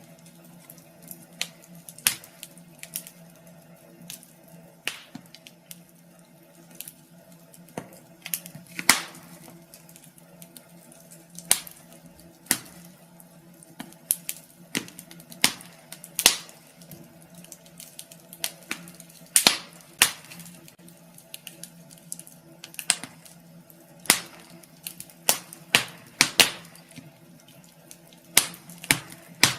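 Wood fire in a fireplace crackling, with irregular sharp pops and snaps, some louder than others, over a low steady hum.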